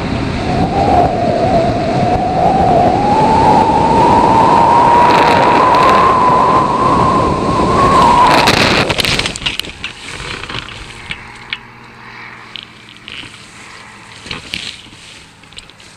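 Wind rushing over a hang glider's camera microphone with a whine rising slowly in pitch, which cuts off about eight and a half seconds in as the glider comes down in tall grass after a tow lockout. Afterwards, scattered rustling and clicks of grass against the wing and frame.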